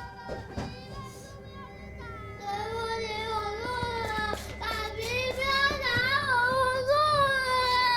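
A child's high voice singing a slow, sustained melody with soft music, the voice coming in about two and a half seconds in.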